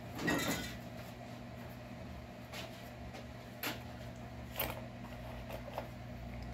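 A small cardboard box of parts being handled and set down on a workbench: a brief rustle, then a few light, separate knocks, over a steady low hum.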